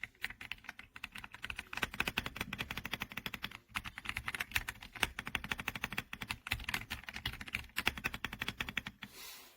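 Fast, continuous typing on an RK Royal Kludge R75 gasket-mounted 75% mechanical keyboard, a dense run of key clacks with uneven rhythm. A brief soft rush of noise near the end.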